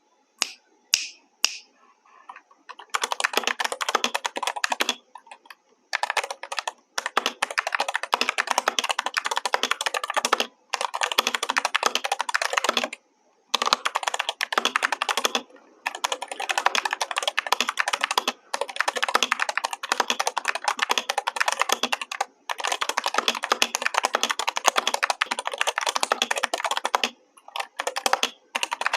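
Typing on a GK61 60% mechanical keyboard: three single key clicks, then fast runs of key presses in bursts of a few seconds, broken by brief pauses.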